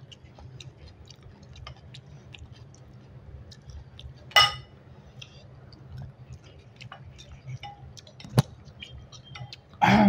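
Close-miked eating sounds: chewing and small wet mouth and finger clicks while rice is eaten by hand. About four seconds in, a utensil strikes dishware with a ringing clink. A sharp knock follows after eight seconds, and a louder clatter at the very end as a serving spoon is dipped into a glass bowl of curry.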